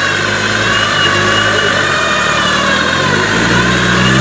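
Land Rover Defender 110 TD5's five-cylinder turbodiesel engine running under load in deep mud, its revs rising about three-quarters of the way in. A wavering high whine sits over the engine throughout.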